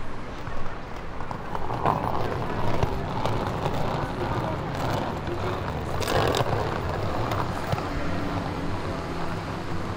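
City street ambience of motor traffic passing on a busy boulevard, mixed with the voices of passers-by. A vehicle's engine note holds steady near the end.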